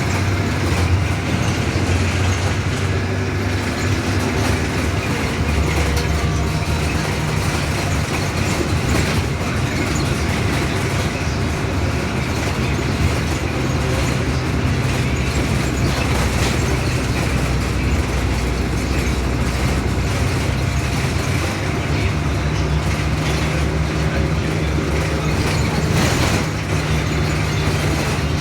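Cabin noise of a 2015 Blue Bird Vision school bus under way: a steady engine drone and road noise with body rattles, the engine note shifting a few times. A single sharp knock near the end.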